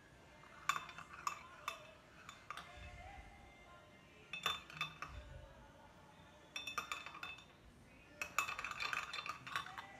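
Metal spoon clinking against a ceramic sugar bowl while stirring sugar into hand soap, in four short runs of quick clinks with pauses between.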